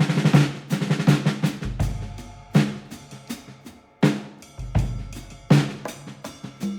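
Drum-heavy music: clusters of sharp snare and kick hits with deep sustained bass notes coming in twice.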